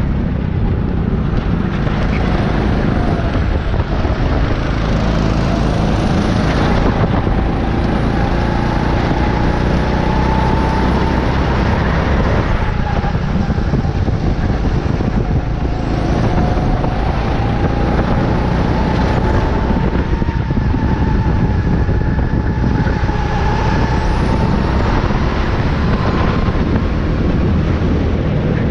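Racing kart's motor running hard at speed, heard from onboard the kart, its pitch rising and falling through the lap.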